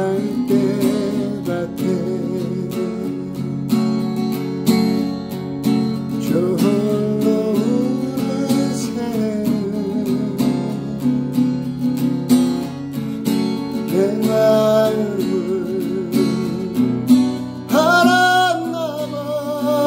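A man singing a slow Korean ballad, holding notes with vibrato, while strumming a cutaway acoustic guitar capoed at the second fret and played in E minor shapes.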